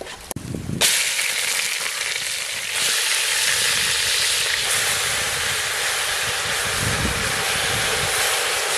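Mushrooms sizzling as they are dropped into a hot pot over a wood fire: a steady hiss that starts suddenly about a second in and gets louder about three seconds in as more go into the pot.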